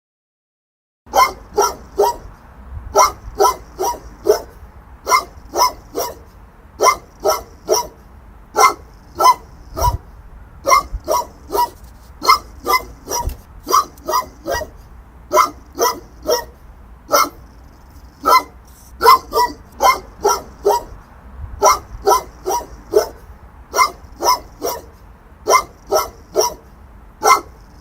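A big dog barking over and over, in single barks and quick runs of two or three, starting about a second in.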